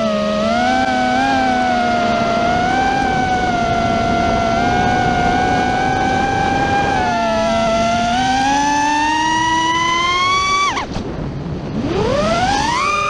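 Freestyle FPV quadcopter's motors whining, pitch wavering and climbing with the throttle. About eleven seconds in the pitch falls sharply and the sound dips briefly, then it climbs steeply again as the throttle comes back up.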